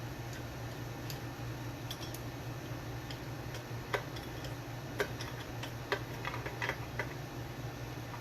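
Scattered small metallic clicks and taps, sparse at first and more frequent from about four to seven seconds in: a hex nut being fitted onto a stacked potentiometer's threaded shaft on a bass body. A steady low hum runs underneath.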